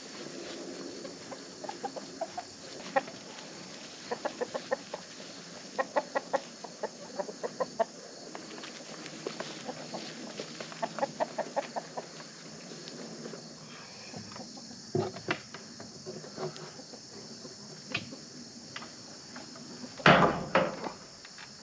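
A flock of hens clucking in short runs of rapid clucks. Near the end there is a loud thump as a small solar panel is set onto the coop's ribbed metal roof.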